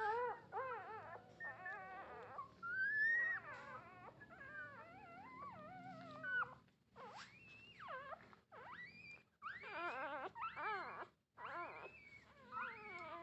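Newborn puppies whining and squealing, several high, wavering cries overlapping with short pauses between them: the puppies calling to their mother to nurse.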